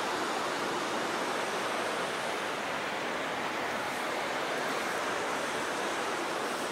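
Steady, even rush of a river running over rocks in a steep gorge.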